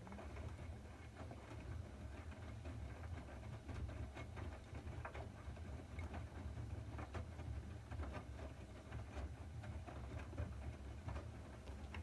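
Siemens IQ300 WM14N190 front-loading washing machine tumbling a wet wash load: the drum starts turning suddenly, with a steady low motor hum under irregular sloshing and splashing of water and laundry inside the drum.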